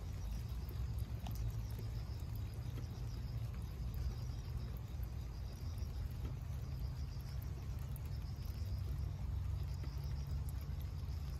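Insects chirping in a steady, high, pulsing trill over a low steady rumble, with a few faint drips of rainwater.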